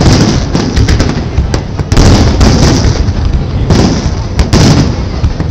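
Aerial fireworks shells bursting in quick succession: loud booms with sharp crackles between them. The heaviest bangs come near the start, about two seconds in and about four and a half seconds in.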